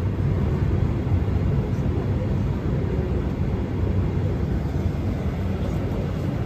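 Steady low hum inside an airliner cabin on the ground, from the aircraft's air-conditioning and onboard systems running.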